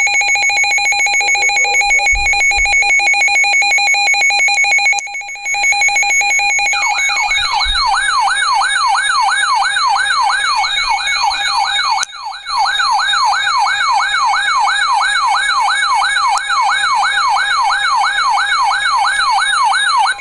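Emergency Alert System alert tones: a steady electronic tone, joined about seven seconds in by a fast warbling, siren-like tone that sweeps up and down two or three times a second. The alert signal comes ahead of a spoken Special Marine Warning.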